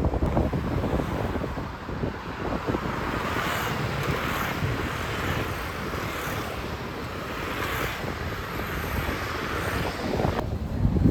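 Wind buffeting the microphone, a low gusty rumble under a steady noisy hiss, as in outdoor street ambience.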